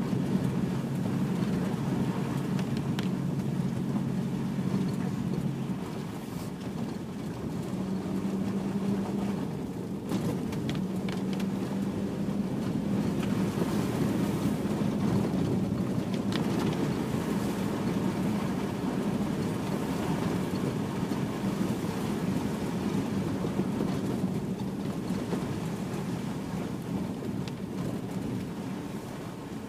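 Range Rover P38 driving on a snowy, slushy road on BFGoodrich Mud-Terrain KM2 tyres, heard from inside the cabin: a steady mix of engine hum and tyre and road noise. The low hum drops away about six seconds in and returns a couple of seconds later.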